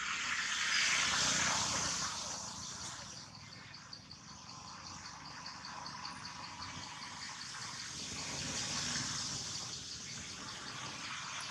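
Forest insect chorus: a steady high buzzing with a fast, even pulsing chirp running through it. It swells louder about a second in and again near the end.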